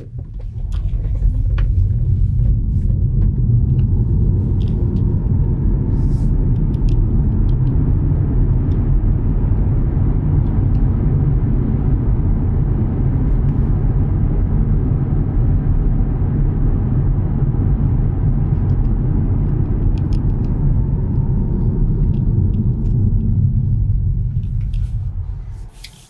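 Road and wind noise inside a pre-refresh Tesla Model 3's cabin at 60 mph: a deep, steady rumble of the tyres on the road that builds in the first second and dies away near the end. It measures about 75 dB on average at this speed.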